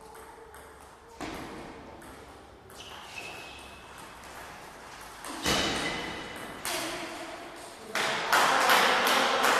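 A table tennis ball clicking back and forth off bats and table during a rally, the hits ringing in a large hall. About eight seconds in, the point ends in a loud burst of shouting and cheering.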